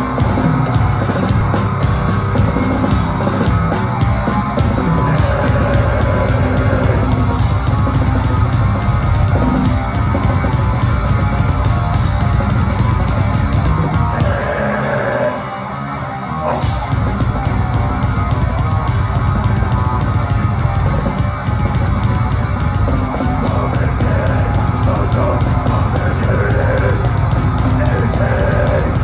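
Heavy metal band playing live: distorted guitars, bass and drum kit, loud and dense. About halfway through, the drums and bass drop out for roughly two seconds, then the full band comes back in.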